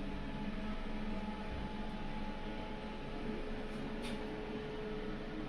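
A steady low mechanical hum with a few held tones, like a small motor or fan running, and a faint tick about four seconds in.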